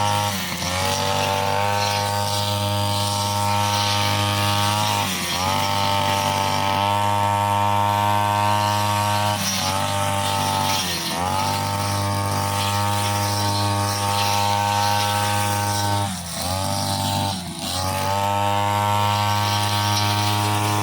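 Petrol brushcutter fitted with a cutting blade, running at high revs, its engine speed dipping briefly about five times and picking straight back up.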